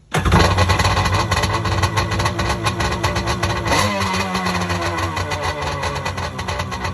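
An engine running steadily and loud, cutting in abruptly, with a brief rise in pitch about four seconds in.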